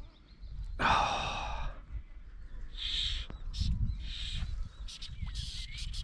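Wind buffeting the microphone in a steady low rumble, with one loud pitched cry lasting about a second, starting about a second in, and a few faint clicks and short hisses later on.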